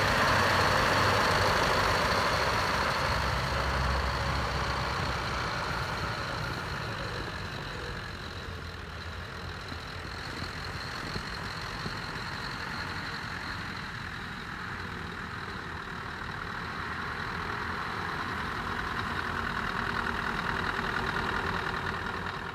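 Scania R500 V8 diesel truck engine running at low revs as the tractor unit drives slowly. The sound is loudest at first, fades in the middle as the truck moves off, and grows louder again near the end as it comes back. It cuts off suddenly.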